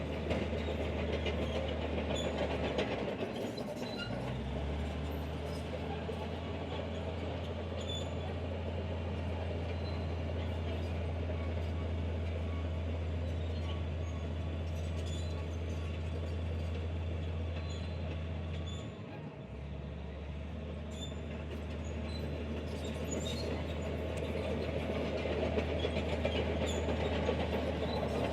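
Heavy diesel earthmoving machinery running under load, a steady deep engine rumble that dips and shifts pitch briefly about three seconds in and again near the middle.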